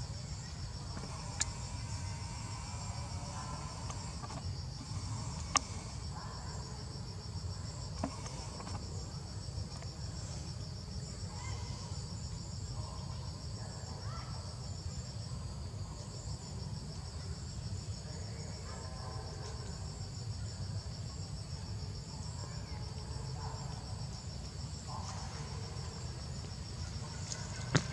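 Chorus of forest insects trilling, a steady high pulsing buzz, with a few sharp clicks, the loudest just before the end.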